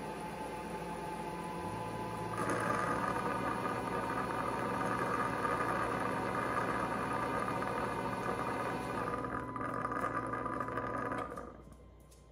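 Dreame L10s Ultra robot vacuum-mop and its base station running a motor cycle during first boot-up: a steady mechanical hum that steps up louder about two seconds in and stops abruptly about eleven seconds in.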